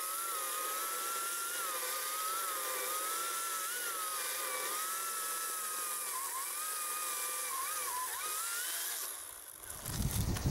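Ryobi 40V brushless battery chainsaw whining under load as it cuts into a spruce trunk. The motor pitch wavers and dips as the chain works through the wood. Near the end the whine stops and a louder low rumble takes over.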